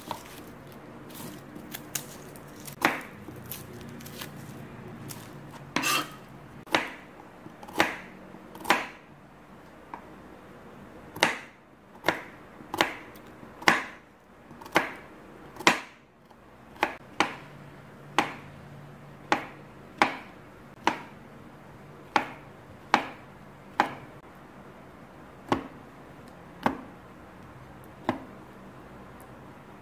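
Kitchen knife slicing garlic cloves and then raw chicken on a cutting board: sharp knocks of the blade meeting the board, roughly one a second, some in quicker runs.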